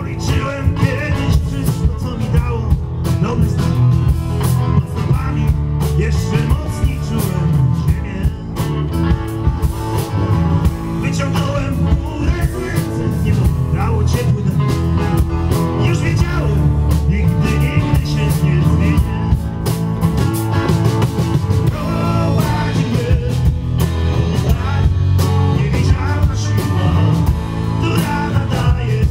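Live rock band playing: drum kit, Fender Jazz Bass, electric and acoustic guitars and keyboard, at a steady full level throughout.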